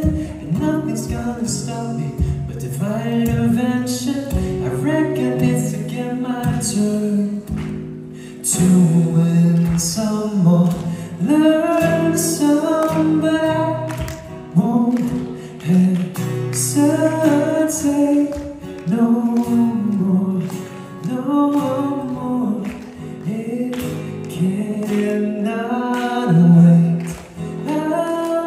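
A man singing a pop song live into a microphone, accompanying himself on a strummed acoustic guitar.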